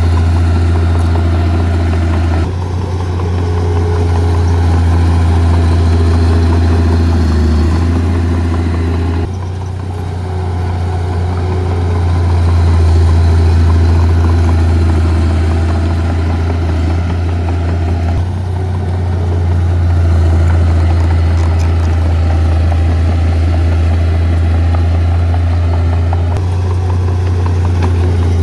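Heavy diesel earthmoving machinery running steadily with a deep drone. The sound shifts abruptly a few times.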